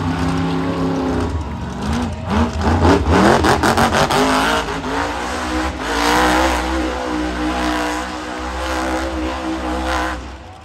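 Monster truck engine revving hard while the truck spins in the dirt. The note swings up and down in quick blips for the first few seconds, then holds at high revs and cuts off abruptly near the end.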